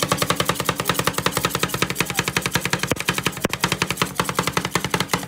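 Two metal spatulas chopping Oreo ice cream on a stainless-steel cold plate, making a fast, steady run of sharp metallic clacks as the blades strike the steel through the ice cream.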